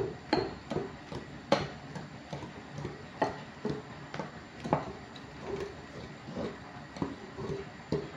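Wire balloon whisk beating thick cake batter in a glass bowl, its wires clinking and tapping against the glass in an uneven rhythm of about two to three strokes a second.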